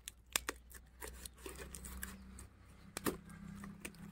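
Taped cardboard parcel being cut and torn open by hand: a few sharp clicks, about a third of a second in and again about three seconds in, with scraping and rustling of tape and cardboard between them.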